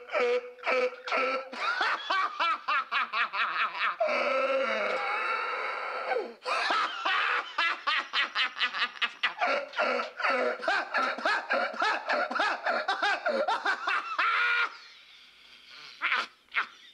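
A man in a helpless laughing fit: rapid breathy bursts of laughter, about four a second, broken about four seconds in by a long drawn-out high cry. The laughter then races on and breaks off about fifteen seconds in, leaving a few last gasps near the end.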